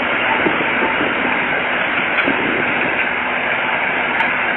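Heavy earthmoving machinery running and moving, a loud, steady, unbroken engine and machinery noise.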